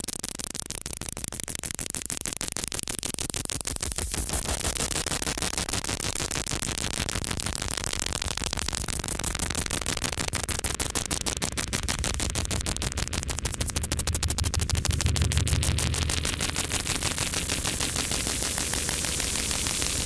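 Experimental noise music: a dense wall of static hiss, chopped by rapid crackling pulses, with a deep rumble swelling about three-quarters of the way through.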